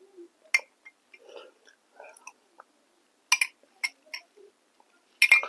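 Close-miked eating of spoonfuls of yogurt: soft chewing with sharp, wet mouth clicks and smacks. A few clicks come about half a second in, a cluster just after three seconds, and the loudest near the end.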